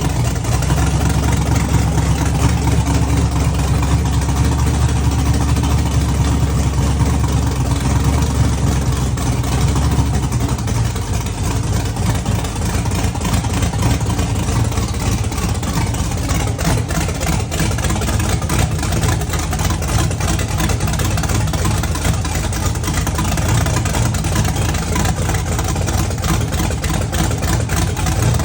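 Custom-built Chevrolet LS 6.0 V8, cammed and set up with a single turbo for E85, running steadily at idle. The deep low hum eases a little about ten seconds in.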